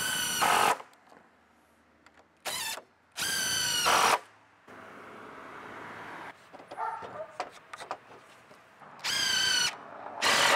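Cordless drill-driver running in short bursts of under a second, about five times, as it drives screws into wood.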